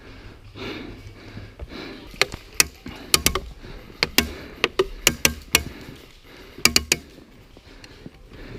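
Airsoft gunfire at close range: about fifteen sharp, irregular cracks starting about two seconds in, some in quick pairs and triples.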